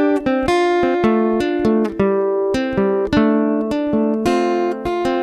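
Song intro on acoustic guitar, plucked chords in a steady rhythm, with no singing yet.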